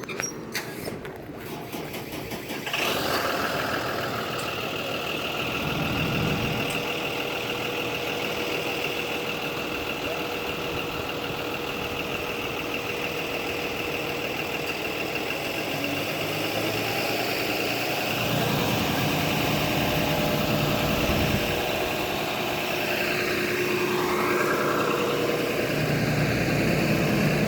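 Bus engine running close by, the noise coming up suddenly about three seconds in and then holding steady, with a steady whine over it.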